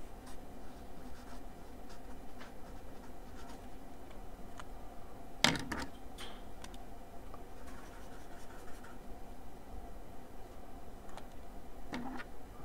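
Pen scratching on a paper notepad in short strokes as a box, a label and a wavy line are drawn. One sharp tap stands out about five and a half seconds in.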